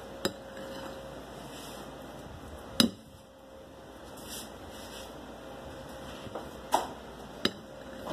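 Kitchenware knocking a few times: five sharp clicks and knocks, the loudest about three seconds in, over a steady hiss.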